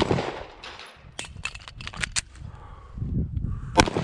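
Shots from 9mm M17 service pistols: a loud shot at the start, several fainter sharp cracks between about one and two seconds in, and another loud shot near the end.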